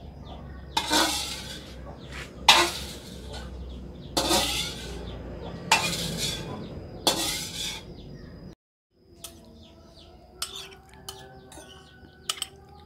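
A spatula scrapes the inside of a metal wok in five loud strokes, each scooping out leftover stir-fry. It cuts off suddenly, and then a metal spoon clinks lightly against a ceramic bowl as it stirs the food.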